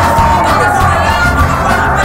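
Audience cheering and shouting over loud recorded music with a heavy bass beat.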